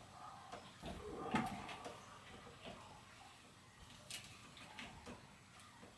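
Faint scattered clicks and knocks of a bicycle's front brake being released and the front wheel being taken out of the suspension fork, with one louder knock about a second and a half in.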